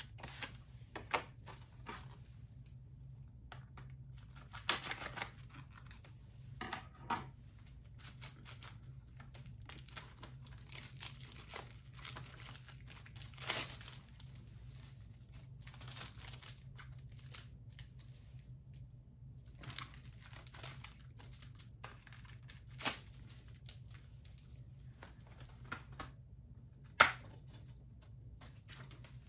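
Plastic shrink-wrap being torn and peeled off a Blu-ray case, in irregular crinkling and tearing bursts. A few sharp clicks stand out, the loudest near the end.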